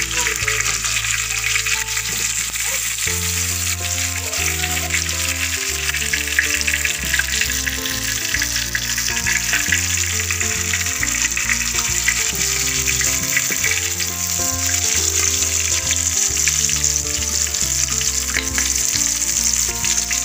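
Hot oil sizzling steadily under masala-coated chicken pieces fried in a steel pan, with background music playing over it.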